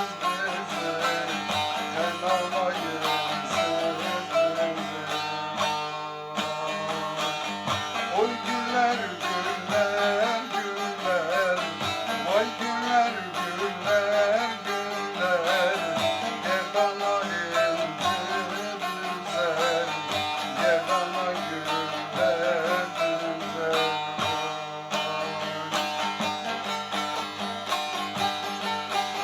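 Instrumental music led by plucked string instruments playing a continuous, ornamented melody.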